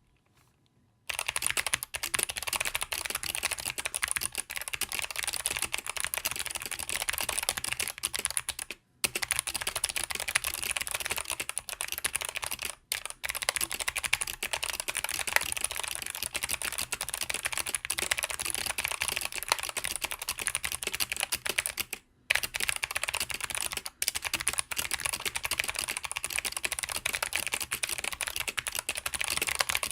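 Fast typing on a GMMK mechanical keyboard with clicky Kailh BOX Navy switches: a dense, steady stream of sharp clicks that starts about a second in and pauses briefly three times.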